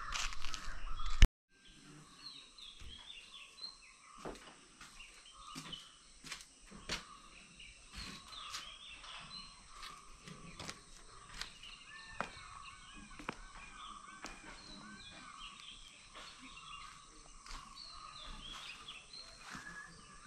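Outdoor ambience of many small birds chirping all through, with scattered sharp taps. It opens with about a second of louder rumbling noise that cuts off abruptly.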